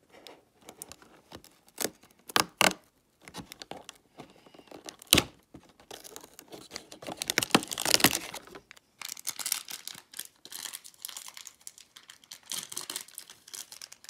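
A perforated cardboard advent-calendar door being pried and torn open with a few sharp clicks, then a small item pulled out with crinkling of its green plastic wrapping, loudest about eight seconds in.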